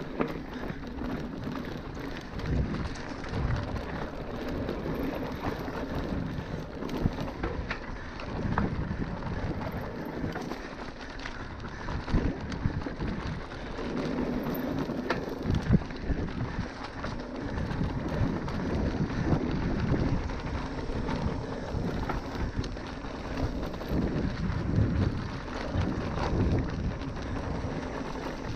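Wind buffeting the microphone with the rattle and crunch of a bike riding fast over a rough dirt trail, full of small knocks and bumps.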